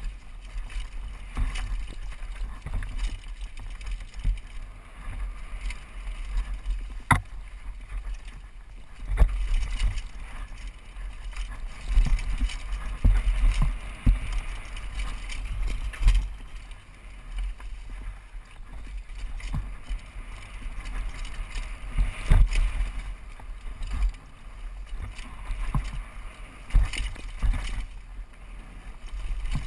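Downhill mountain bike descent heard from a helmet-mounted camera: a constant rushing rumble of wind on the microphone, with the bike knocking and rattling over rocks and roots, including a sharp knock about seven seconds in.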